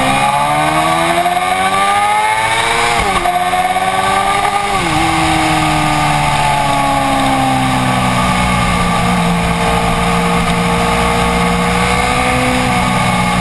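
2007 Suzuki GSX-R inline-four through a Jardine slip-on exhaust, accelerating hard with its pitch climbing, then dropping sharply at two upshifts about three and five seconds in before settling to a steady cruise. Wind rushes over the bike-mounted microphone throughout.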